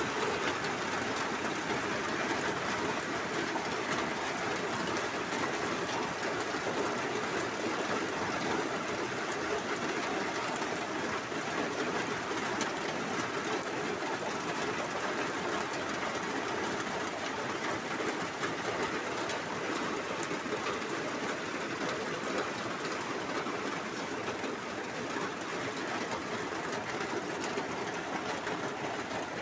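Heavy rainstorm: a dense, steady hiss of pouring rain, heavy enough to drown out talk.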